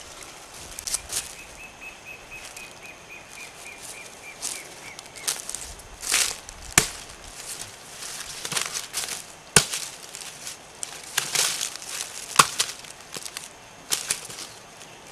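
Machete chopping at brush and soil: a string of irregular sharp strikes, some one at a time and some in quick pairs.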